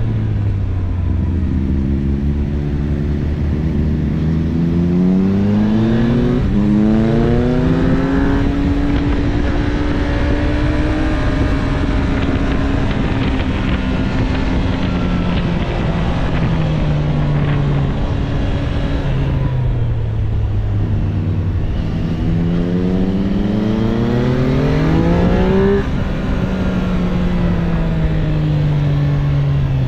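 Triumph Street Triple 765 RS inline three-cylinder engine on its stock exhaust, heard from on the bike at riding speed, with wind rushing over the microphone. The engine pitch climbs in long sweeps as the bike accelerates out of bends, then holds steady through the curves, with a sudden drop in pitch near the end as it shifts up.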